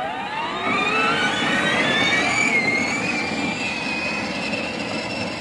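Electric motor and gearbox of a battery-powered children's ride-on car whining as it speeds up with the pedal held down: the whine rises in pitch over the first two seconds or so, then holds steady. Underneath runs a rolling hiss from the plastic wheels on asphalt.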